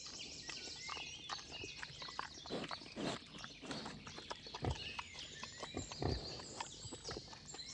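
Wild boar moving in a mud wallow: irregular wet splashes, squelches and hoof knocks in the muddy water.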